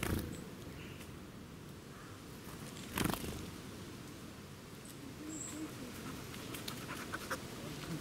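A dog approaching, panting, with scuffing paw steps over the path in the last few seconds. A brief wing flutter at the start as a small bird takes off from the seed, and a sharp knock about three seconds in.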